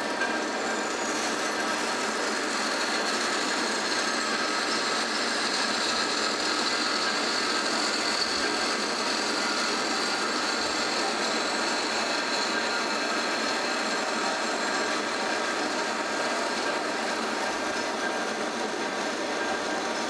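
Marvel rolling bandsaw running under power feed, its blade steadily cutting through a thick bronze bushing tube: an even, continuous sawing noise with a high-pitched whine.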